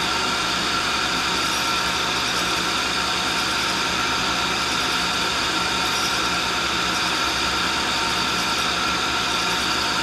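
A tool and cutter grinder's coarse Norton seeded-gel wheel running against a hardened lathe center spun by the motorized work head. It makes a steady whir with light grinding as the center sparks out with no further infeed, the final passes that leave it true.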